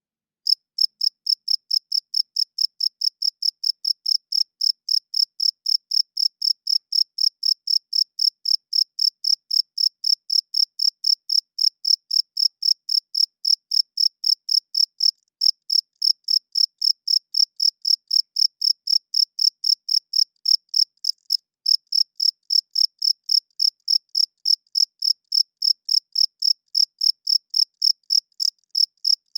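Cricket chirping: a steady, high-pitched train of about three chirps a second, starting abruptly about half a second in.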